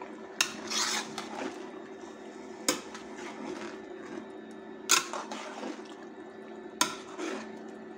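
A metal spoon stirring chicken gizzards, liver and chopped tomatoes in a metal pot. The spoon knocks sharply against the pot's side four times, about every two seconds, with wet scraping of the mixture between the knocks, over a steady low hum.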